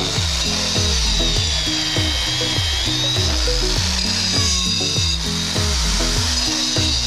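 Angle grinder with a cutting disc running with a high whine, its pitch sagging about two to three seconds in as the disc bites into the rim of a 4-inch drain pipe bend, trimming down a pipe that sits fractionally high. Background music with a steady beat plays underneath.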